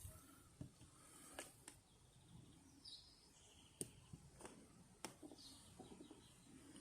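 Near silence, with a few faint clicks and some faint high chirps.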